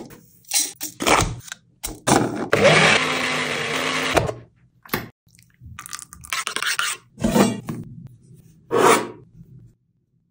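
A few sharp clicks and taps, then a small personal blender grinds garlic, green herbs and green chilli into a paste for about two seconds, with a steady whirr over a low hum, and cuts off abruptly. Short, scattered kitchen handling sounds follow.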